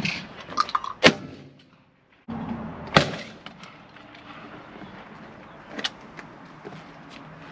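Two shots from a .410 bolt-action shotgun, about two seconds apart, with a short dropout between them, then a lighter click a few seconds later.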